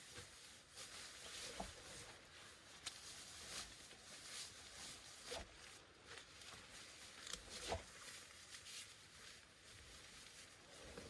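Faint rain pattering on a tent, with a few louder single drops ticking on the fabric, about four in all.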